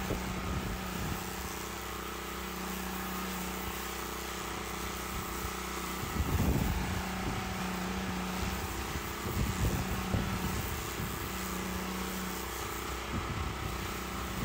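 Pressure-washer jet on an extended pole lance blasting moss off roof tiles: a steady hiss of water spray over a machine-like drone. Gusts of wind rumble on the microphone around the middle.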